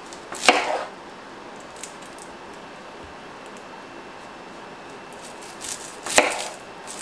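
Kitchen knife cutting through an onion onto a wooden cutting board: two sharp cuts, one about half a second in and one about six seconds in.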